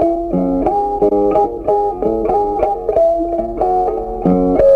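Background instrumental music: a melody of plucked notes over chords in a steady rhythm.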